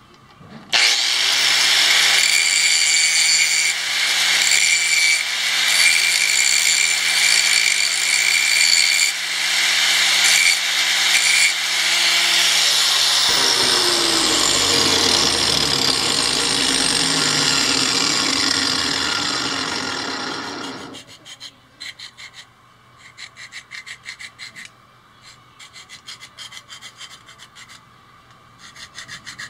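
A small handheld power tool grinding steel, a loud hiss over a steady motor hum; about halfway through the hum drops and the pitch falls away, and the grinding stops about two-thirds of the way through. Then a run of short hand-filing strokes rubbing on steel.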